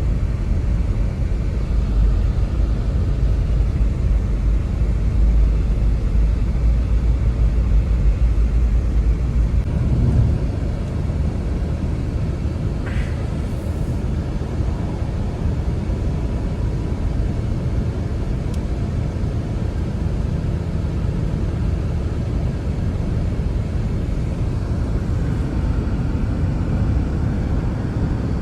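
Snowstorm wind blowing steadily with a deep rumble, stronger for about the first ten seconds and then easing a little.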